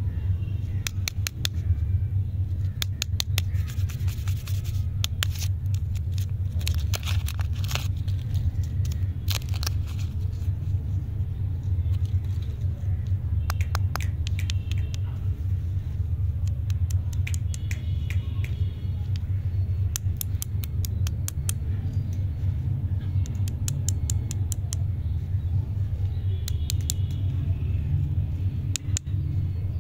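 Plastic candy wrappers crinkling and crackling as fingers unwrap toffee lollipops, in irregular short spells, over a steady low hum.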